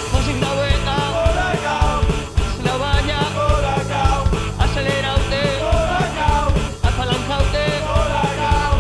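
Rock band playing an uptempo punk-rock song: drum kit beating steadily under bass, guitar and a wavering lead line. The full band comes in louder right at the start.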